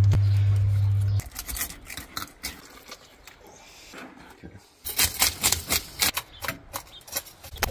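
A loud, steady low hum stops about a second in. It is followed by a kitchen knife working a whole snapper on a plastic cutting board: soft cuts and scrapes at first, then, from about five seconds in, a quick run of sharp scraping strokes along the fish's side.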